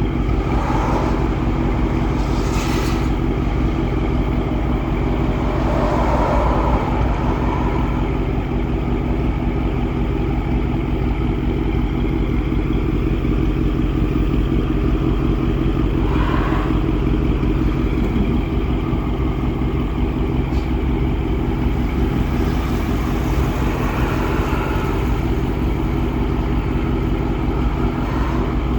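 Audi S7's engine idling steadily, with a few faint brief sounds over it.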